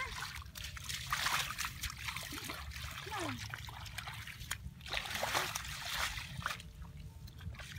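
Bare feet splashing through a shallow, muddy water channel in a rice field, in bursts of sloshing and trickling water.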